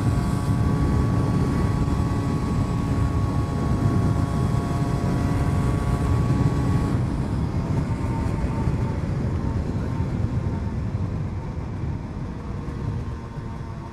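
Cagiva Mito 125's single-cylinder two-stroke engine running steadily under way, over a dense low rush of wind and road noise. About halfway through, the engine note drops, and it fades off toward the end as the bike slows.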